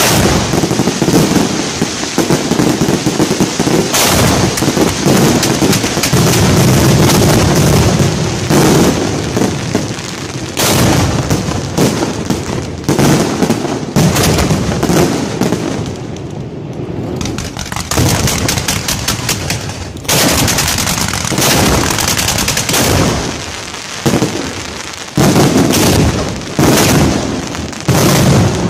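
Fireworks fired at close range from the racks: a dense, loud barrage of rapid launches and bangs, thinning briefly about sixteen seconds in before heavy, spaced bangs resume.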